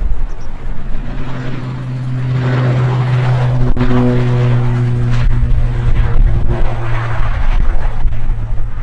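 ATR 72 turboprop airliner's engines and propellers running with a strong steady low propeller drone over a heavy rumble. Two brief sharp knocks come in the middle.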